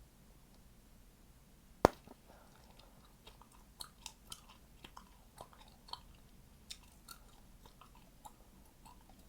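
Chewing gum being chewed close to the microphone, with one sharp, loud pop just under two seconds in followed by a run of smaller irregular snaps and clicks.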